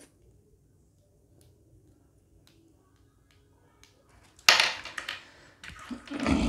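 Faint clicks of the small plastic earbuds of a Bluetooth neckband being handled and pressed together, then a sudden loud burst of handling noise about four and a half seconds in, and another near the end, as the neckband is set down on the table.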